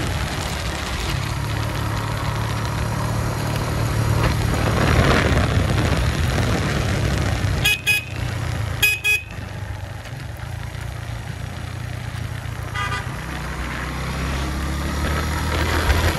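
Suzuki GS150 motorcycle's single-cylinder engine running steadily under way, with a hissing rush over it. Short horn toots sound in pairs about eight and nine seconds in, and one fainter toot comes about thirteen seconds in.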